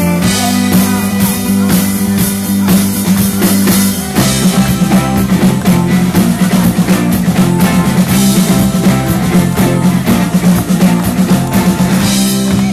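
Amplified live rock band playing an instrumental stretch of a song with no vocals: drum kit, electric guitars and bass guitar. The low end grows fuller about four seconds in.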